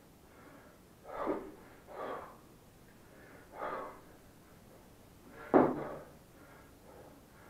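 A man breathing hard under the effort of a 28 kg kettlebell one-arm long cycle (clean and jerk) set. There are four short, forceful breaths a second or two apart, and the loudest comes suddenly about five and a half seconds in.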